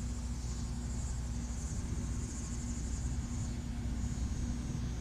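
Steady low rumble and hum of a train, with crickets chirring steadily in a high band above it.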